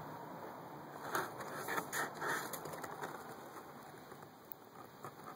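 Cardboard packaging and a paper tag being handled: a quick cluster of short rustles and scrapes about a second in, then only faint background hiss.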